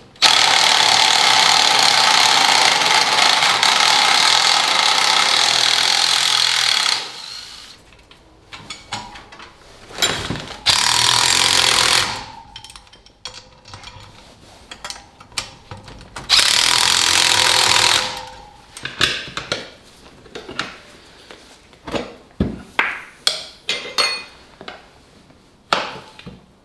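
A power tool runs in three bursts: one of about seven seconds at the start, then two shorter ones of a second or so each, with sharp clicks and knocks of tool handling between them.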